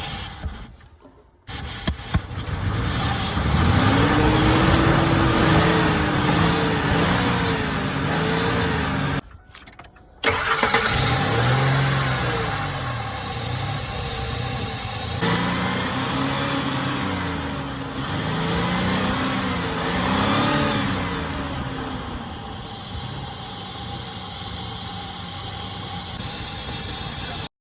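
2003 Ford F-150's 4.2-litre V6 engine starting and running, its revs rising and falling again and again. The sound breaks off twice for about a second, once near the start and once about nine seconds in, and the engine picks up again after each.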